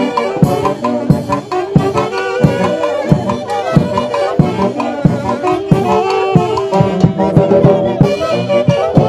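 Traditional Andean fiesta music: a band of brass and wind instruments playing a melody in held notes over a steady drum beat of about one and a half strikes a second.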